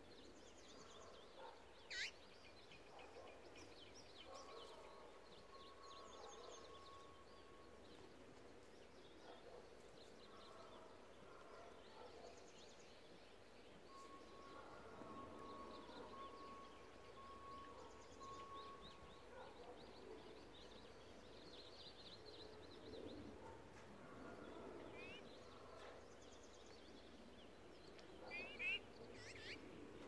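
Faint outdoor ambience of small wild birds chirping and trilling, with a sharp loud call about two seconds in and a louder burst of calls near the end.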